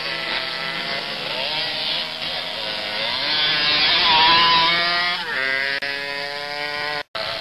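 Small dirt bike's engine revving up and down at low speed, rising to its loudest and highest pitch as it passes close about four seconds in, then dropping back to a lower, steadier pitch. The sound breaks off for a moment near the end.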